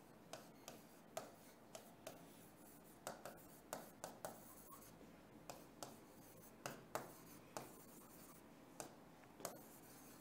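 Faint handwriting: a run of short, irregular scratching strokes of a pen or marker being written with.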